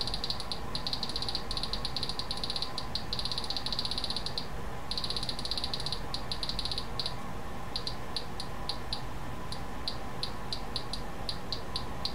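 Agilent E3648A power supply ticking with each step of its front-panel rotary encoder as the knob is turned, in rapid, uneven runs with a short break, thinning out to scattered single ticks after about seven seconds. A steady turn that does not give an even tick rate is the sign of the encoder skipping, which the owner puts down to a gunked-up encoder.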